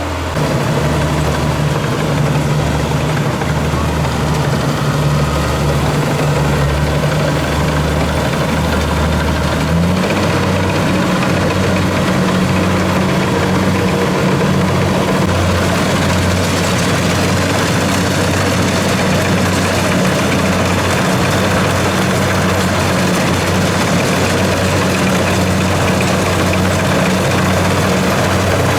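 Kubota DC70 Plus combine harvester's diesel engine running steadily. About ten seconds in its pitch steps up and holds higher as the engine is revved.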